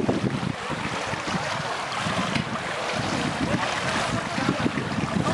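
Wind rumbling unevenly on the microphone over a steady outdoor hiss, with the faint wash of kayak paddles working the water of a pool.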